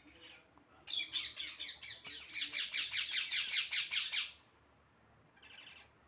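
Green parakeet screeching: a rapid, harsh run of about five or six squawks a second for some three seconds, then a few shorter squawks near the end.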